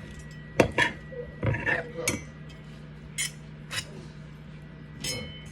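Kitchen utensils and dishes clinking and clattering: about eight separate sharp knocks and clicks, irregularly spaced, with a cluster in the first two seconds.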